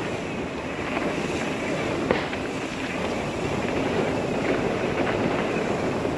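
Wind rushing over a helmet-mounted camera's microphone while mountain biking down a dirt trail, mixed with the steady rumble of the tyres on dirt and a couple of sharp knocks as the bike goes over the ground.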